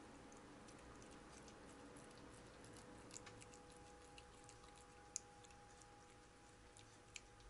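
A cat eating wet canned beef pâté, faint and close: irregular small wet clicks and smacks of its tongue and teeth as it licks and chews, with a few sharper clicks, the loudest about five seconds in. A faint steady hum underneath.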